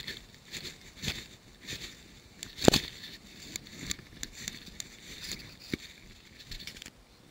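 Irregular clicks and knocks from handling a fly rod and line while landing a hooked bass. One loud knock comes a little under three seconds in.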